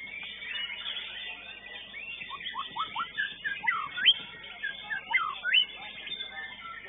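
Caged competition songbird singing a run of quick whistled notes that sweep up and down, busiest in the middle of the stretch, over a steady higher chatter.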